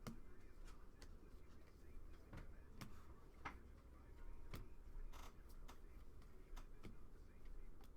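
Faint, irregular clicks and taps of baseball cards being handled and flipped through one by one.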